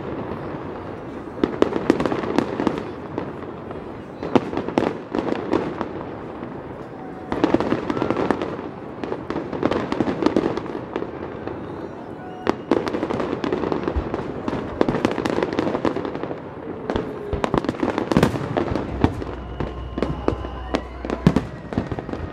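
Fireworks display: aerial shells bursting with sharp bangs and dense crackling that come in waves, heaviest about two seconds in, around eight to ten seconds in, and around eighteen seconds in.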